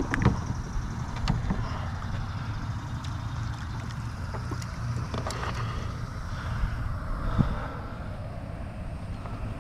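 Wind rumbling on the microphone, with scattered sharp knocks and clatter as a landing net holding a redfish is swung aboard a plastic kayak and set down in the angler's lap.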